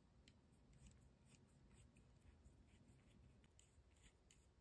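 Near silence, with faint scattered light ticks of a small hex driver turning tiny screws into the frame.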